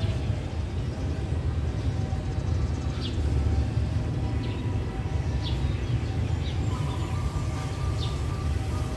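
Low, steady rumble of an approaching GE diesel-electric locomotive, still far down the line, with birds chirping now and then. A faint held tone starts about seven seconds in.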